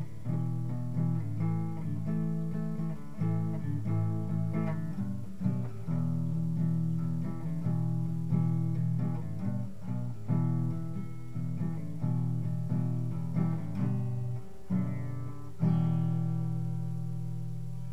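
Guitar music: picked notes and strummed chords, ending on a chord struck near the end that rings and slowly fades.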